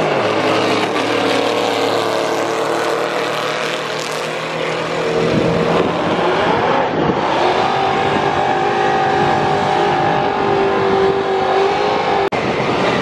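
Drag-racing car engines at high revs on the strip. A car runs down the track, then engines are held at steady high revs from about midway until near the end, where the sound briefly drops out.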